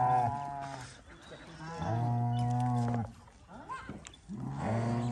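Cows mooing: three long, level-pitched moos, the first ending about a second in, the second around the middle, and the third starting near the end.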